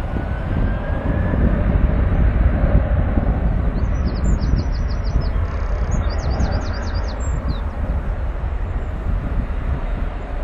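Jet airliner engine noise rumbling steadily, mixed with wind on the microphone. A small bird sings a quick run of high chirps in the middle.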